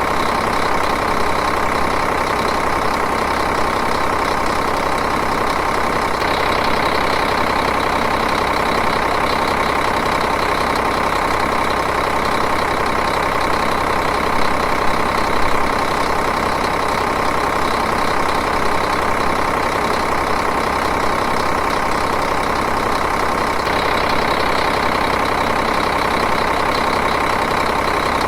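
Diesel engine idling steadily, with an even, rapid clatter.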